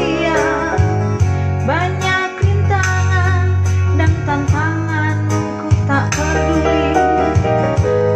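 A woman sings an Indonesian ballad with vibrato into a microphone. An electronic keyboard accompanies her with sustained bass notes and a steady drum beat.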